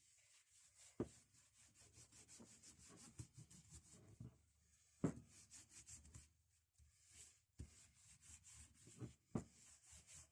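Faint quick rubbing strokes by hand, a brush or cloth worked back and forth over a tool, with a few light knocks in between.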